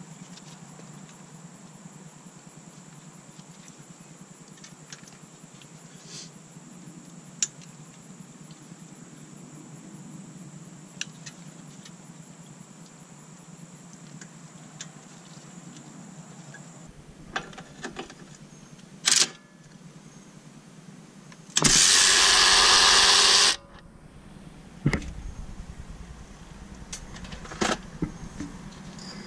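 Scattered light metal clinks and taps of tools on a car's front hub and brake. About two-thirds of the way through, a power tool runs in one loud burst of about two seconds, followed a little later by a single knock.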